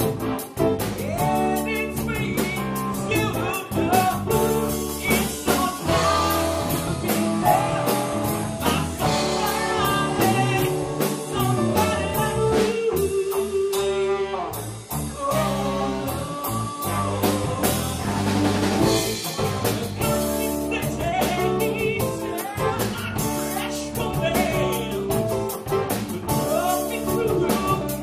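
Live blues-rock band playing: drum kit and electric guitar, with a blues harmonica played into the vocal microphone and singing over it.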